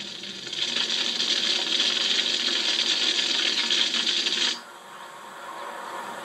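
Dense, fast metallic rattling that stops abruptly about four and a half seconds in, leaving a fainter background.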